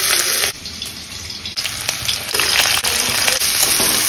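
Hot oil sizzling in a steel kadai as chopped ginger and garlic, then chopped red onion, go in and are stirred. The sizzle drops away about half a second in and comes back loud just before two seconds.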